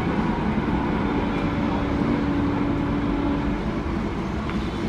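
Passenger express train running past with a steady rumble. A single low tone is held for about three seconds within it, and the rumble eases slightly near the end.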